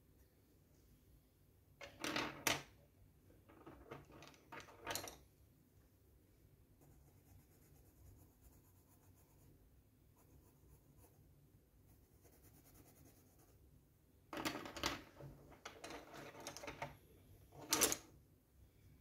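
Crayola coloured pencils knocking and clattering against the table and each other as they are put down and picked up, in two bunches of knocks: one about two seconds in and another from about fourteen seconds in. Between them, faint scratching of a pencil colouring on paper.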